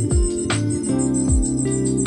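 Music with a steady beat: deep kick drums, a snare hit about halfway through and another near the end, held bass notes, and a fast jingling shaker or tambourine.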